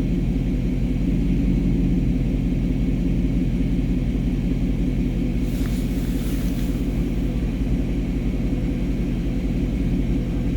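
2019 Ford Mustang GT's 5.0-litre V8 idling steadily in a garage, with no squeak or chirp from the front of the engine: the intermittent belt-like squeal the owner is chasing is not occurring. A brief hiss comes about halfway through.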